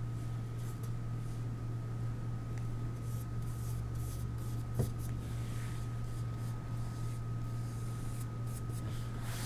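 Flat paintbrush swishing matte medium over paper collage strips: faint, irregular brush strokes on paper, under a steady low hum.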